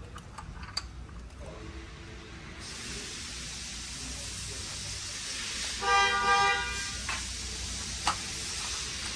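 A car horn honks a few short toots about six seconds in, over a steady hiss that starts a few seconds earlier.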